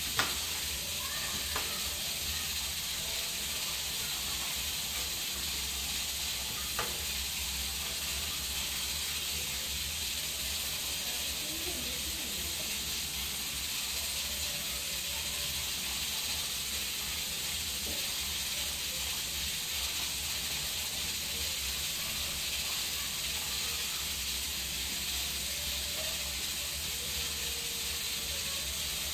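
Steady hiss with a low hum underneath, and a few faint taps of a knife on a cutting board as an onion is cut, the sharpest one right at the start.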